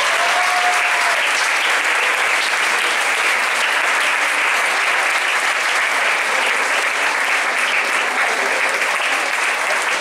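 Audience applauding steadily as a student is called up to receive an award.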